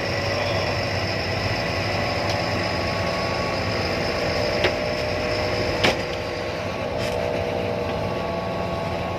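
Bus engine running with a steady hum. A few sharp clicks or knocks sound over it, the loudest about six seconds in.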